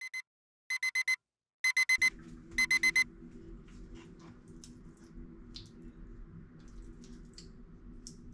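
Electronic alarm beeping: a high steady beep in quick groups of about four, repeated several times over the first three seconds. It is followed by a low steady hum with faint clinks of a spoon scooping rice into a ceramic bowl.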